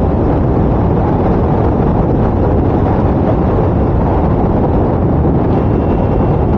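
Loud, steady wind rush on the microphone over the KTM Duke 390's single-cylinder engine and tyre noise, the bike cruising at a constant speed of about 65 km/h.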